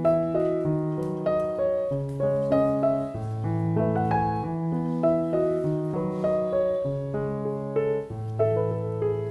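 Background piano music: a gentle melody of notes changing about every half second over longer held bass notes.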